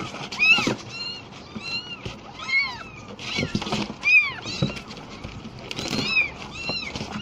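Very young orphaned kittens mewing in a rapid series of short, high-pitched cries, several calls overlapping, while one is being bottle-fed milk replacer.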